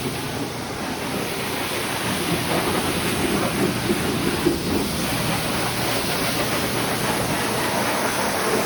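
Self-serve car wash high-pressure spray wand blasting a steady jet of water onto a muddy bike, a continuous loud hiss and splatter.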